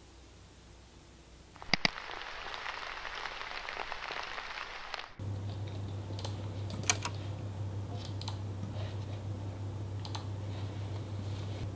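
A few seconds of steady rain hiss that starts and stops abruptly. Then computer mouse clicks and keyboard typing, scattered sharp clicks over a steady low hum.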